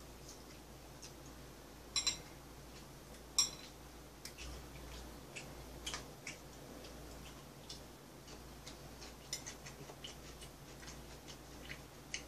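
Scattered light clicks of chopsticks and a spoon tapping ceramic bowls and plates while food is picked apart, the loudest about three and a half seconds in, with a run of smaller clicks near the end.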